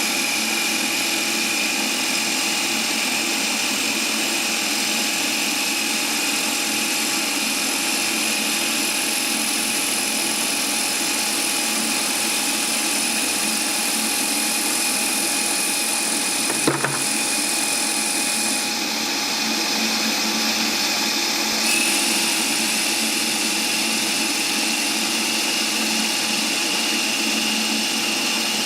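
South Bend lathe running steadily with a fixed whine, turning down a hickory wood shaft. A single sharp click sounds about 17 seconds in, and the high hiss drops away for a few seconds soon after.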